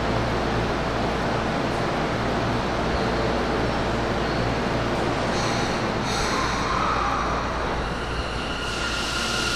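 Tokyo Metro Yurakucho Line subway train running at the platform with steady rolling noise. About seven seconds in there is a brief rising-and-falling whine, and steady high tones sound near the end.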